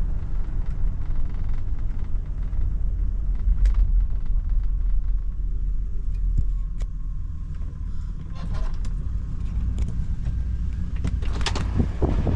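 1977 Ford LTD's V8 and road noise as a low, steady rumble while the car slows and pulls over, with a few light clicks and knocks in the second half.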